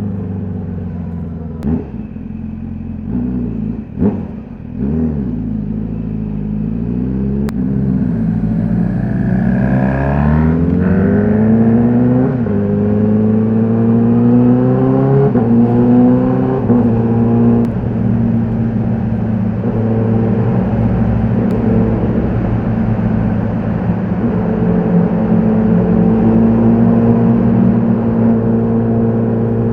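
Honda CBR1000RR-R SP's inline-four on its stock exhaust: a few short blips at low revs, then accelerating with rising pitch, broken by three quick upshifts whose pitch drops a few seconds apart, before settling into a steady cruise.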